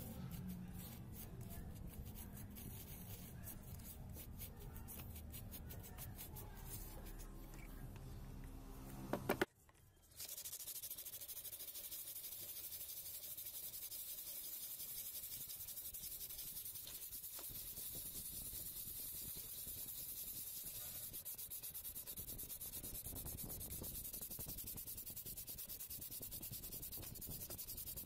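Sandpaper rubbed by hand back and forth over a filled patch on a plastic laptop palmrest, a steady scrubbing hiss. It starts after a short break about a third of the way in. Before the break there is a lower, uneven rubbing and scraping.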